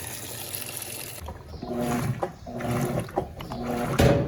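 Electrolux LF90 top-loading washing machine agitating a load of towels: after a water hiss, the agitator motor starts about a second in and hums in short back-and-forth strokes, about two a second. There is a single thump about four seconds in.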